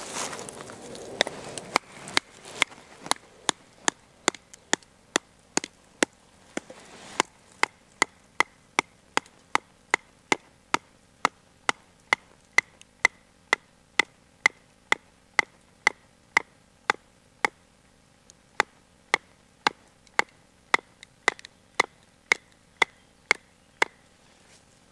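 A wooden baton striking the spine of a Blind Horse Knives Bushcrafter to drive its blade down through a stick (batoning), giving sharp, evenly spaced knocks at about two a second. The stick is standing on soft soil, so the blows push it into the ground more than they split it.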